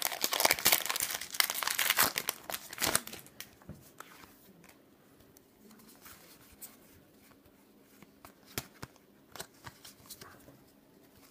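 A foil Pokémon booster pack wrapper crinkling and tearing as it is pulled open, loud for about the first three seconds. Then quieter, scattered clicks as the cards inside are slid and handled.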